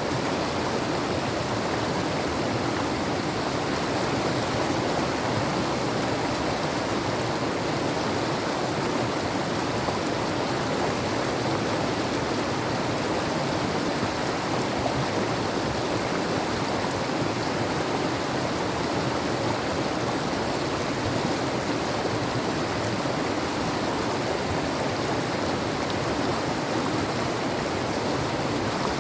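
Mountain river running: a steady, unbroken rush of water.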